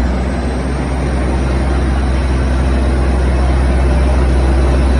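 Daewoo diesel railcar 2525 of the State Railway of Thailand running, a loud, steady low engine drone under a rumbling wash of noise, growing slightly louder.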